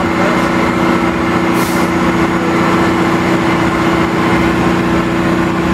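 A crane's heavy engine runs steadily as it holds and hoists the bronze statue, with a short hiss about one and a half seconds in.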